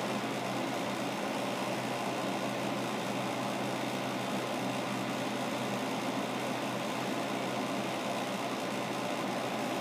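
Steady low hum and hiss of background room noise, unchanging and with no distinct events.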